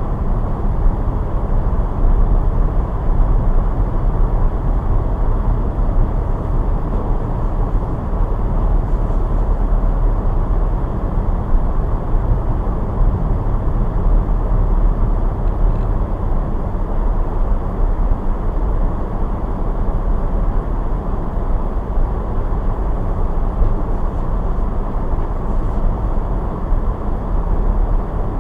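Steady low rumble of a car being driven: road and engine noise that holds even throughout.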